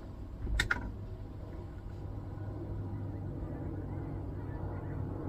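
A brief double click about half a second in, then a steady low hum.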